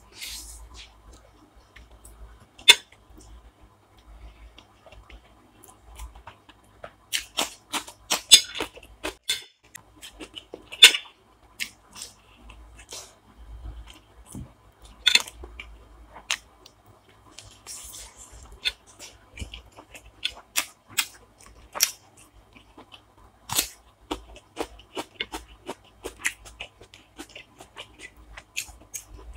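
Close-miked mukbang eating: chewing, wet mouth smacks and crunches come irregularly throughout, with several loud sharp clicks.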